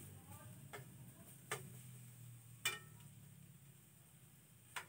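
A cooking utensil clinking against a frying pan four times, unevenly spaced, while garlic and ginger are stirred; the loudest clink comes about two and a half seconds in. A faint low hum lies underneath.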